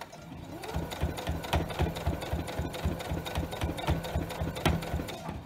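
Electric sewing machine stitching a seam at about five stitches a second. It picks up speed over the first second, runs steadily, and stops near the end.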